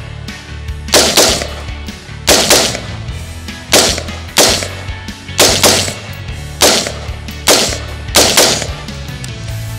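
Hera Arms The 15th, a semi-automatic AR-15-pattern rifle, firing about a dozen single shots in quick succession, often two close together, with sharp cracks and short echoing tails. A steady background music track runs underneath.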